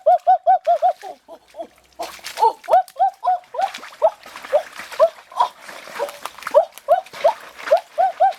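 Dog giving many short, high yelping cries: a quick run of about five a second at the start, then irregular yelps throughout.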